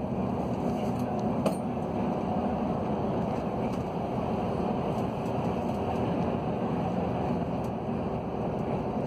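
Steady road and engine noise heard from inside a moving vehicle's cabin as it drives along a highway, with a small click about one and a half seconds in.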